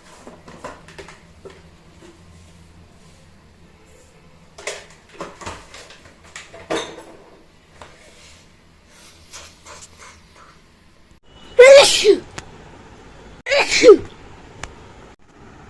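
A person sneezing twice, two loud sneezes about two seconds apart near the end, after a few fainter short sounds.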